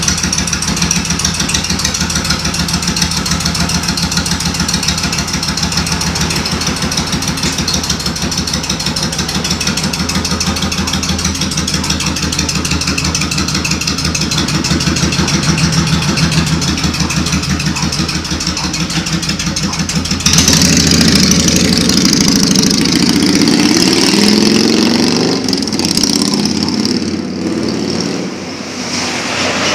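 Kawasaki Vulcan 88 (Vulcan 1500) V-twin engine idling with a steady pulsing beat. About two-thirds of the way in it turns louder as the bike pulls away and accelerates, the revs rising, and near the end it fades into the distance.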